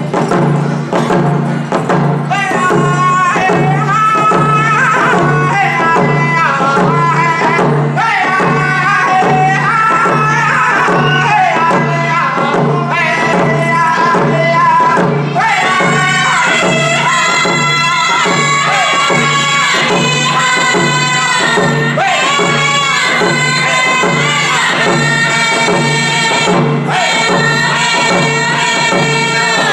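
Native American hand drum song: two handheld rawhide frame drums struck in a steady, even beat, with men's and women's voices singing over them. The voices come in about two seconds in and the singing grows fuller about halfway.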